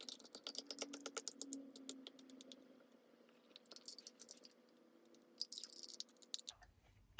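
Faint crackling clicks as thin alabaster slurry is poured slowly from a plastic bowl into a silicone mould. The clicks come fast for the first couple of seconds, then in short runs, over a faint steady hum.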